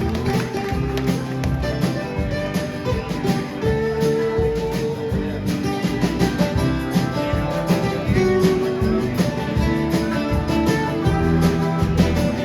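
Live acoustic string-band music, with guitar strummed and picked to the fore.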